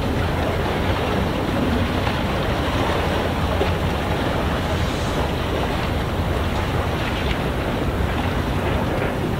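Steady outdoor rumble of wind buffeting the microphone over the wash of harbour water, with no distinct events.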